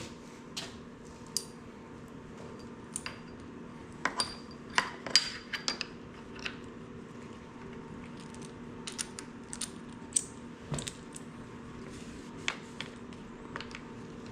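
Small metal parts and tools clinking and tapping while a reworked handlebar guard bracket is test-fitted to a dirt bike's handlebar, the loudest clinks with a short metallic ring coming between about four and six seconds in. A low steady hum runs underneath.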